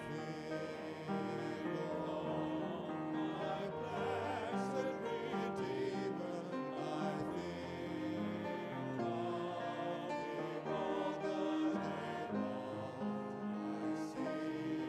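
A group of men sing a hymn together through microphones, with musical accompaniment. The notes are held long and change smoothly from one to the next.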